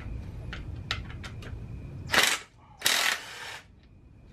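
Ratchet wrench clicking in two quick bursts, after a few light tool clicks, as a jackshaft bolt on the electric dirt bike's frame is loosened.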